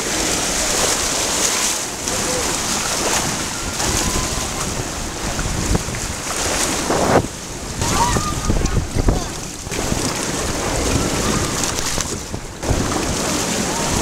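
Water rushing and splashing around a multi-person raft sliding down a water-slide flume, with wind buffeting the microphone.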